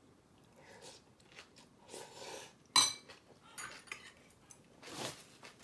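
Cutlery clinking against a bowl during eating: one sharp clink about three seconds in, then a few lighter taps, with soft quieter handling sounds between.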